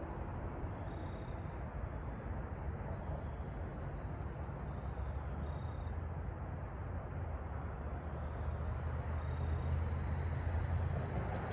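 Steady low rumble of road traffic, swelling louder as a vehicle passes about eight seconds in.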